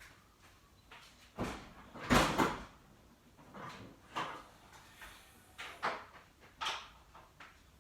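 A series of knocks and clunks from parts being handled on the engine, about seven in all, the loudest a clatter about two seconds in: the oil filler cap and engine cover being worked loose.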